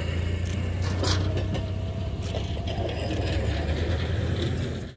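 Hi-rail pickup truck running past on the railway track, a steady low engine and wheel hum, with a single sharp click about a second in. The sound cuts off abruptly at the end.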